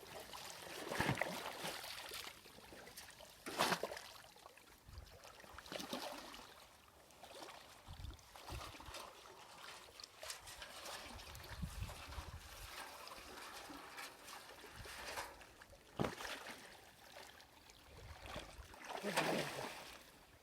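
Water splashing and sloshing in about five bursts, with quieter trickling between, as the shallows are stirred up during the hunt for carp.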